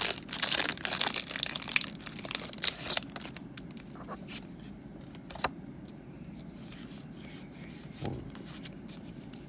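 Foil booster pack wrapper crinkling and tearing open for about the first three seconds. Then quieter rubbing and light clicks of the trading cards being handled, with one sharp click about five and a half seconds in.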